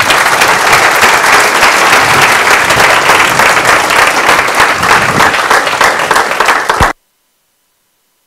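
Audience applauding, a dense clatter of many hands clapping, which cuts off abruptly about seven seconds in.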